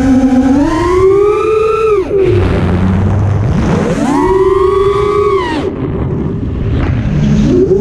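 FPV quadcopter's electric motors whining, the pitch rising and falling with the throttle. The throttle is cut about two seconds in, leaving a low hum, and punched again a second or so later. It drops once more around five and a half seconds and climbs again near the end.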